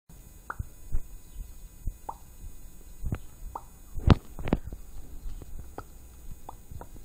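A person making mouth noises: irregular tongue clicks and lip pops, about fifteen over the seconds, the loudest about four seconds in.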